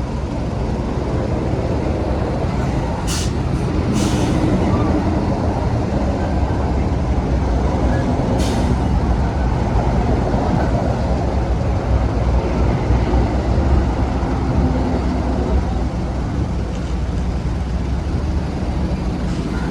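A MAN truck's diesel engine running steadily. Three short hisses of air break in: two close together a few seconds in, and one more a few seconds later.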